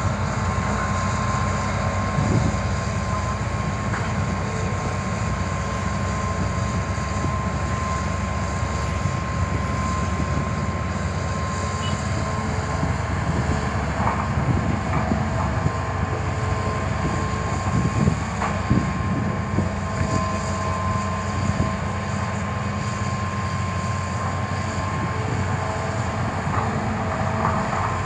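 Hitachi Zaxis 200 excavator working: its diesel engine running steadily with a constant high whine over the low hum, and a few scattered knocks.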